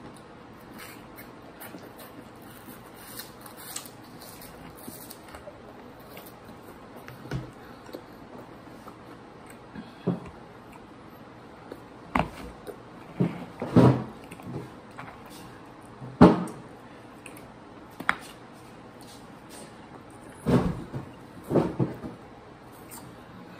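Scattered short crunches and knocks of two people eating crunchy snacks at a table, hands reaching into a plastic container and bowl, with louder clusters from about halfway through.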